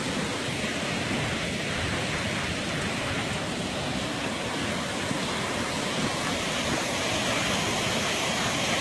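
Steady rush of water from the World Trade Center Memorial's reflecting-pool waterfall, mixed with falling rain, growing a little louder near the end.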